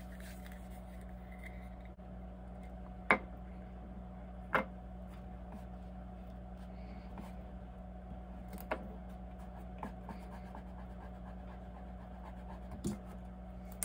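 Fingertips rubbing oil paint onto metal jar lids, a faint scratchy rubbing, broken by about four sharp taps of the metal lids being handled. A steady low hum runs underneath.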